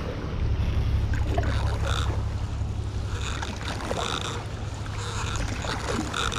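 Wind rumbling on the microphone, with light water sounds from paddle strokes on a paddleboard.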